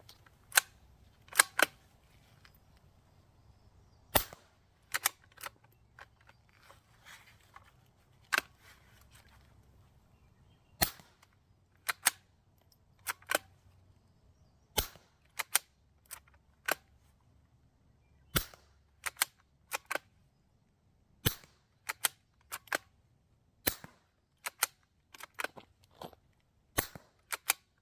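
Suppressed Savage Mark II bolt-action .22LR rifle with an Anechoic Anechox-22 suppressor, firing CCI Quiet 45-grain subsonic rounds. The shots are quiet, sharp cracks a few seconds apart, and between them come the smaller metallic clicks of the bolt being worked.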